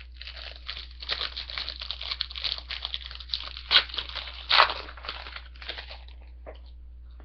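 A trading-card pack wrapper being crinkled and torn open, a busy crackling rustle with two louder rips around the middle that dies away near the end.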